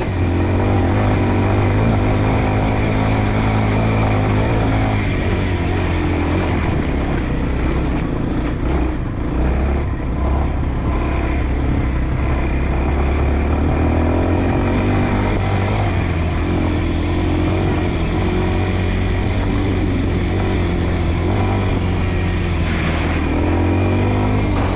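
Enduro dirt bike engine running steadily, its pitch rising as it revs near the start and again near the end, easing off briefly around the middle.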